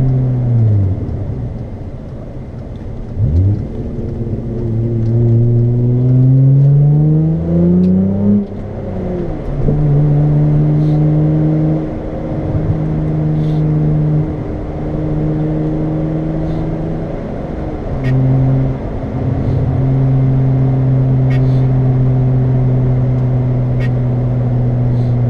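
Straight-piped Hyundai Tiburon's engine and exhaust, heard from inside the cabin while driving. The note falls away at the start, then climbs steadily through a gear. It drops at a shift, then holds a steady cruising drone with a few brief dips.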